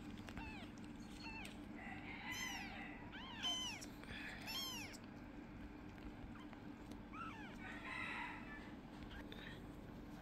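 Very young kittens mewing: a string of short, high-pitched cries that rise and fall, coming thickest between about two and five seconds in and again near the end.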